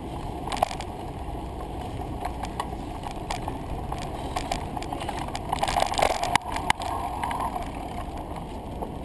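Bicycle ride noise: a steady rumble of tyres on pavement and wind, with scattered clicks and rattles and a louder burst of knocks about six seconds in.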